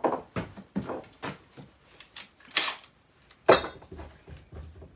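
Tools and parts being handled and moved about on a workbench: a run of light knocks and clinks, with a sharper metallic clink about three and a half seconds in.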